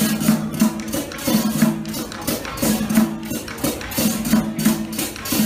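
Loud music with a quick, even percussion beat, about three strokes a second, over a repeating bass line.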